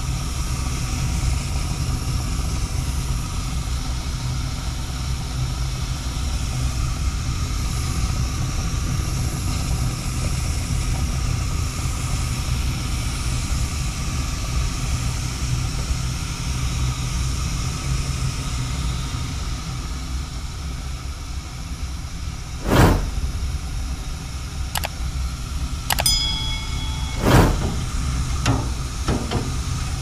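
35-year-old Bryant gas furnace running with its burners lit: a steady low rumble. Near the end come a few sharp knocks, one of them with a short metallic ring.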